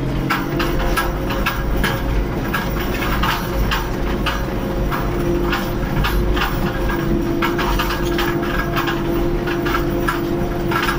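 New Holland TD110 tractor's diesel engine running steadily under load, heard from inside the cab while it pulls a cultivator. A steady hum is overlaid by constant irregular rattling and clattering.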